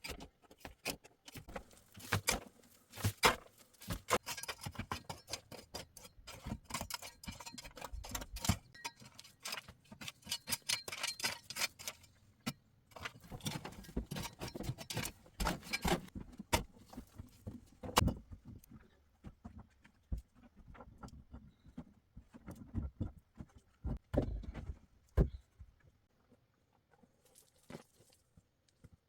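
A run of small clicks, taps and knocks, like objects being handled and set down, thinning out near the end.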